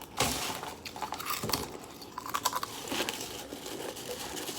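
Crunchy snacks (Takis rolled tortilla chips and popcorn) being chewed fast, a run of irregular crisp crunches with the sharpest bites about a quarter second in and again around a second and a half.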